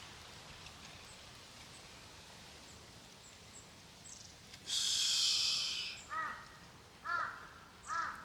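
Three short animal calls about a second apart near the end. They follow a loud rustling hiss about five seconds in.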